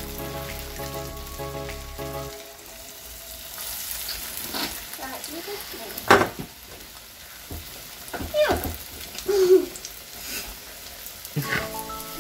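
Breaded ravioli frying in hot oil in a stainless steel pan, with a steady sizzle. There is a sharp knock about six seconds in, and a few short vocal sounds a few seconds later.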